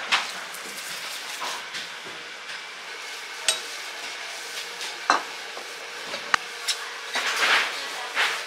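Butcher's knife cutting and scraping along a side of pork ribs, with several sharp clicks and knocks and a longer rasp near the end, over a steady hiss of background noise.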